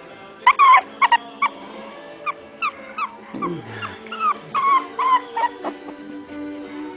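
A three-week-old puppy whimpering in a quick series of short, high-pitched cries, many sliding downward in pitch, over background music.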